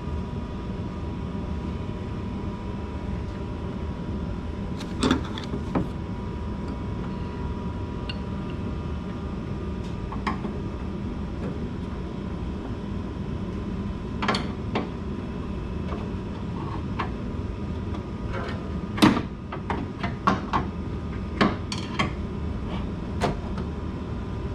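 Scattered sharp clicks and knocks of metal parts and tools being handled inside a car door, a few at first and then several close together near the end, over a steady low hum.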